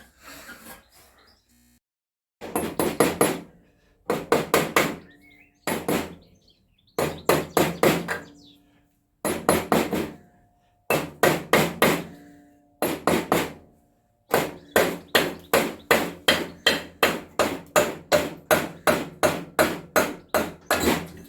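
Hammer blows on metal: short bursts of several quick strikes with pauses between them, then a long unbroken run of about three strikes a second from about two-thirds of the way in. A faint metallic ring hangs between some of the blows.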